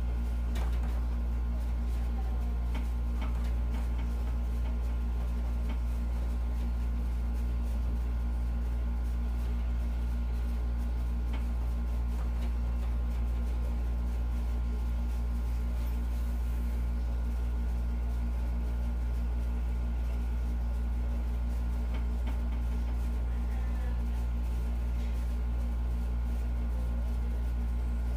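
Steady low hum of room tone, with a few faint clicks scattered through it.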